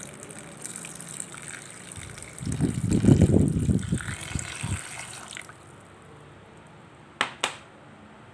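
A thin stream of water pouring into a plastic blender jug onto chopped onion, garlic and ginger, splashing louder in the middle and stopping about five and a half seconds in. Two short sharp clicks follow near the end.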